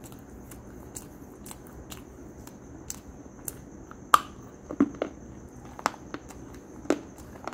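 Close-up eating sounds of a crisp snack being bitten and crunched. A sharp loud crack of the bite comes about four seconds in, followed by crunching chews about a second later and again near six and seven seconds, with small mouth clicks before the bite.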